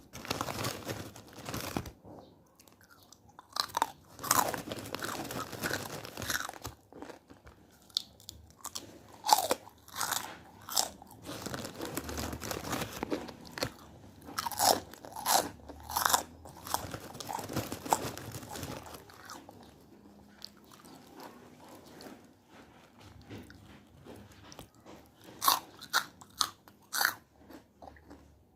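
A person biting and chewing gurilem, a crunchy puffed tapioca snack, with irregular loud crunches. The crunching eases off about two-thirds of the way through, then a few more sharp crunches come near the end.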